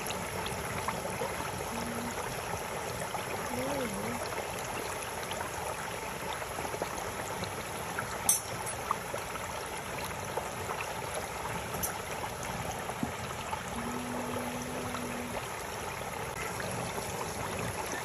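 Whole turkey deep-frying in a pot of hot oil: a steady, dense sizzling and bubbling, with a single sharp click about eight seconds in.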